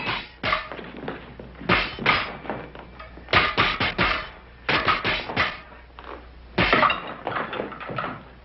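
Fencing foils clashing and scraping in quick flurries of sharp clicks, with thuds of feet and bodies on a wooden floor between them.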